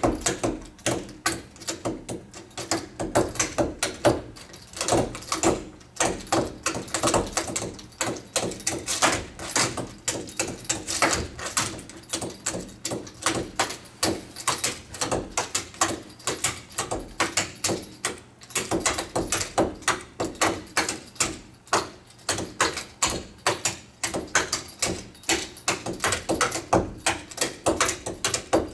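High-heeled shoes stamping and tapping on a hard floor in fast solo step-dance footwork, several sharp strikes a second, easing off briefly twice.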